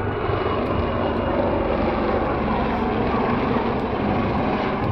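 Aircraft engine noise from a flying display: a steady, loud rush with a faint steady whine running through it.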